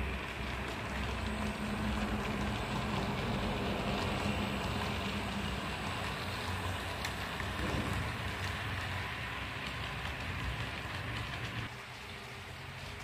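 Model passenger train running past on its track: the Fepasa V8 model locomotive's electric motor hums while the wheels patter rapidly over the rails. The sound drops off near the end.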